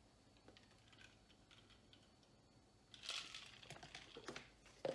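Faint light clicks and handling noises from a drinking glass and a plastic scoop as creatine powder is mixed into water. The clicks grow denser and a little louder about three seconds in.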